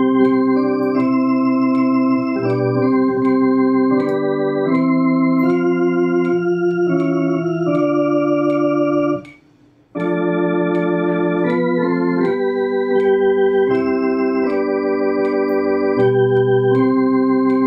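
Two-manual electronic organ playing a hymn in slow, held chords with both hands. The playing stops briefly about nine seconds in, then starts again.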